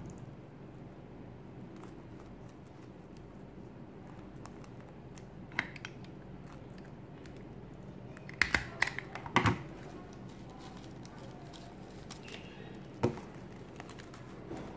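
Handheld stapler clacking through folded fabric, several sharp clicks in quick succession a little past halfway, with single clicks a few seconds before and after and soft handling of the fabric between.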